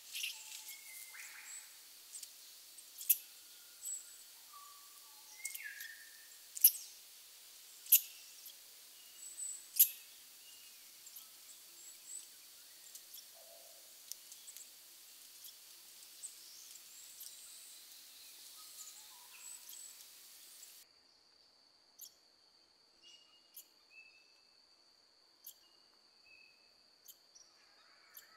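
Forest ambience: scattered short bird calls and sharp, high chip notes over a steady high hiss, with a faint steady high-pitched tone underneath. The hiss drops away about two-thirds of the way through, leaving the calls and tone more exposed.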